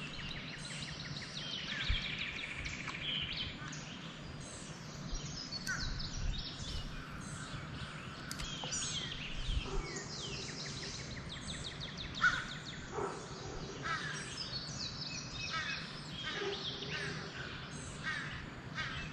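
Several birds singing and calling at once: overlapping chirps, trills and quick runs of repeated notes, over a low steady background rumble.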